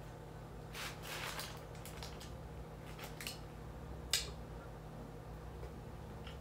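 Close-up eating sounds: a fork scraping and tapping on a plate and food being chewed in short scrapes and squishes, with one sharp click just after four seconds, over a steady low hum.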